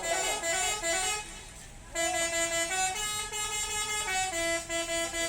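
Telolet bus horn playing a tune: a multi-note horn stepping between a few held notes, with a short lull about a second in before the melody resumes about two seconds in.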